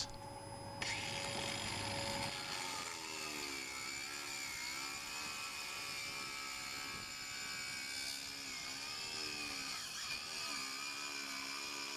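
Battery-powered angle grinder with a thin stainless-steel cutting wheel, cutting a shallow kerf through the top layer of a fiberglass deck. The motor whine starts about a second in, then wavers up and down in pitch as the wheel bites and eases along the cut.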